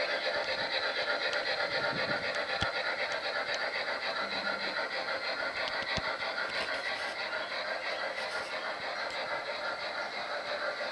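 Gauge 1 model freight train running on garden track: a steady, fast rhythmic clatter of wheels on rail, fading slightly as the cars move away. Two brief low knocks are heard, about 2.5 and 6 seconds in.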